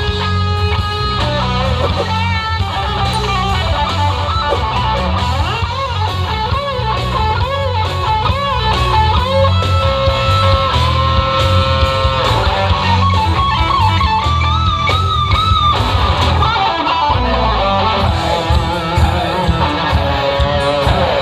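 Live rock band playing a heavy metal number: an electric guitar lead with bending, wavering notes over loud bass and drums. The bass and drums thin out briefly near the end.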